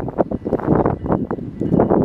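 Wind buffeting the camera microphone in loud, irregular gusts.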